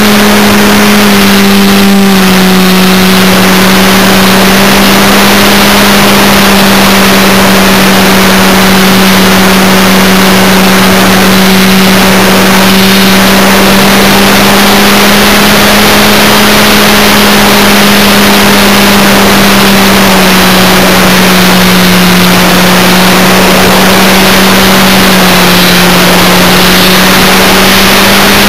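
Motor and propeller of a radio-controlled model aircraft heard from a camera on board: a loud, steady drone that shifts slightly up and down in pitch a few times, over a heavy hiss of wind and airflow.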